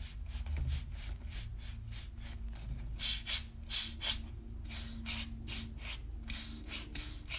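Air puffing out through the freshly drilled vent holes of a foam-filled RC tire as it is squeezed by hand, in quick rhythmic hisses about three a second, some stronger than others. The free flow of air shows the vents are open.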